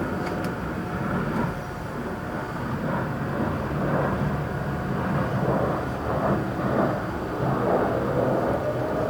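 Distant outdoor tornado warning siren sounding during a test. Its steady tone fades soon after the start, comes back wavering, and rises in pitch over the last second or so. A steady low rumble runs underneath.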